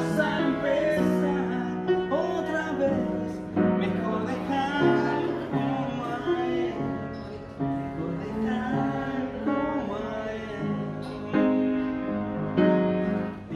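Yamaha upright piano being played, with a voice singing along.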